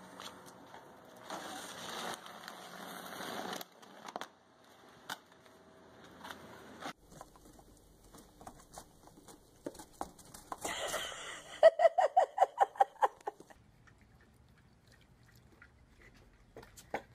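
A snow shovel scraping over snow for a couple of seconds. Later comes a quick run of about a dozen short, sharp pitched sounds, about six a second, which is the loudest thing here.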